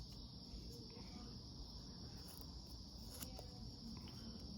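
Faint, quiet scene with a steady high-pitched hiss, broken by a few soft clicks of small multitool scissors snipping paracord, once near the start and again about three seconds in.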